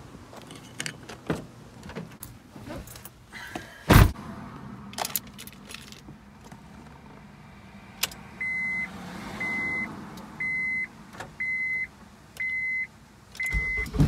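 A car door is opened and shut with one loud thump about four seconds in, amid small clicks and key jingles. Then a dashboard warning chime beeps six times, about once a second, and the engine starts right at the end.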